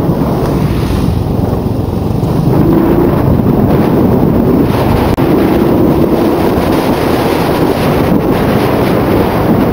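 Heavy wind buffeting the microphone of a handlebar-mounted camera on a moving motorcycle, over the bike's engine running steadily at road speed.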